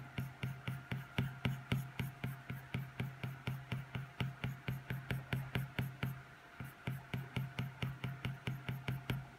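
A dog panting fast and steadily, about five or six pants a second with a brief pause just past the middle, in the heat, over the steady hum of an electric fan.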